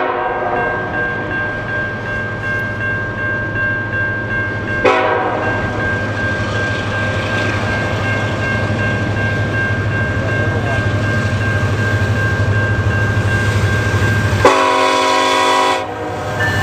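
Approaching CN freight train led by an SD70M-2 diesel locomotive sounding its multi-chime air horn: one blast cuts off just after the start, a short one comes about five seconds in, and a longer blast of about a second and a half comes near the end. Under the blasts runs the steady rumble of the diesel locomotives, growing as the train draws closer.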